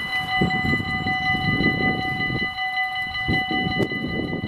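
Level-crossing warning bells ringing on without a break, a rapid even ring at one fixed pitch, over an uneven low rumble.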